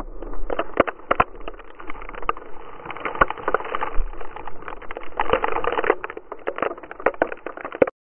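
Irregular crunching, scraping and knocks of snow against an action camera and snowboard as a fallen snowboarder slides and settles in the snow after a crash; it cuts off abruptly near the end.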